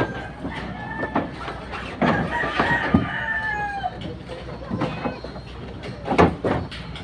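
Knocks and rubbing as a thick orange power cable is hauled and coiled by hand over a metal edge, loudest about two, three and six seconds in. Several thin, drawn-out high tones run over it, one of them falling in pitch about halfway through.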